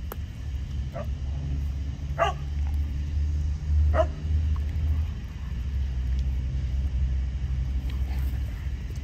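Dog barking a few times: three clear barks about one, two and four seconds in, and a fainter one near the end, over a steady low rumble.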